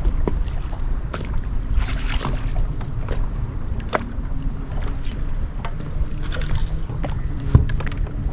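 Steady low rumble with scattered clicks and knocks, the handling noise of a small fishing boat on the water.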